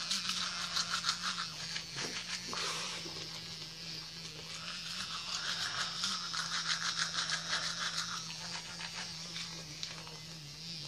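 Manual toothbrush scrubbing teeth through a mouthful of soap lather: quick, wet back-and-forth brushing strokes.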